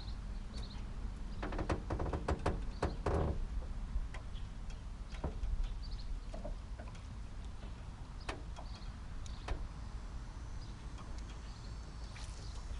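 Light clicks and knocks from fishing tackle being handled in an aluminium jon boat, with a quick run of clicks about two seconds in and a few single ticks later, over a steady low rumble.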